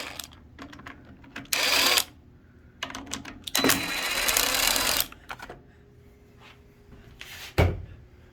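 Socket ratchet clicking in two quick runs as the 10 mm carburetor mounting bolts are loosened, followed by a single thump near the end.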